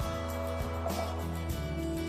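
Background music: plucked guitar with steady bass notes.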